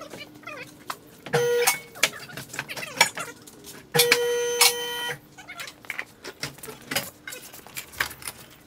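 Power tool whirring in two short bursts, about a second and a half in and for about a second from four seconds in, with clanks and knocks between as bolts are run out to lower the Jeep's skid plate and gas tank.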